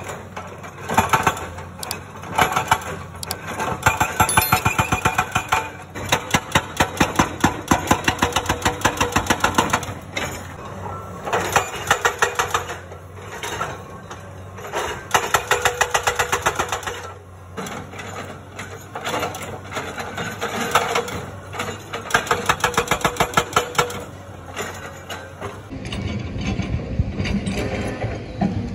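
Hydraulic breaker on a tracked excavator hammering rock, in bursts of rapid, evenly spaced blows with short pauses between, over the steady hum of the excavator's diesel engine. Near the end the hammering stops and a diesel engine running is left.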